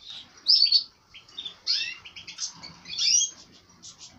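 Many caged canaries and goldfinches chirping and twittering, short overlapping calls, the loudest about half a second in, near two seconds and at three seconds.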